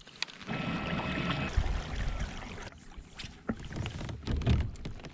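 Water sloshing and knocking against a fishing kayak's hull as it moves, with a few sharp clicks and two heavier swells of low rumble.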